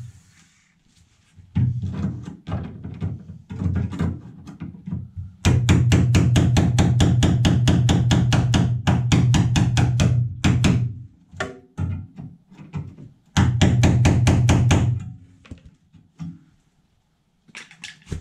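Hammer tapping a chisel into a classic Mini's sill lip to split the panel apart where its spot welds have been drilled out. Scattered knocks come first, then two long runs of quick, light blows, about six a second, with the sheet steel ringing under them.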